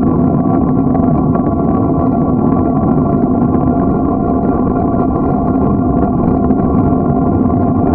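Steady riding noise from a bicycle rolling along an asphalt road: wind buffeting the bike-mounted microphone and tyre rumble, with a constant hum over it.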